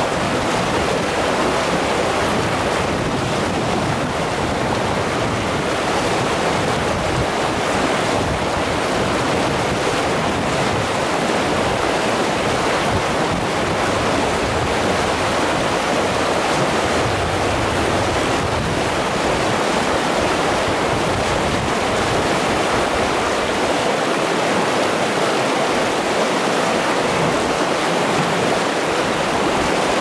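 River rapids rushing steadily: a loud, even wash of whitewater pouring over rocks.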